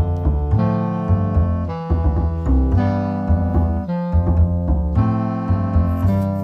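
Background music: piano with a walking bass line, played to a steady beat.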